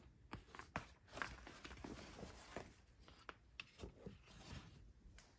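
Faint handling noise from plastic door-sill trim and its wiring: a string of irregular light clicks and taps with soft rustling between them.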